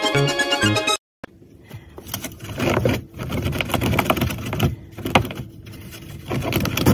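Music for about the first second, then, after a brief gap, irregular scratching and rustling from a rabbit working at a corner of the floor.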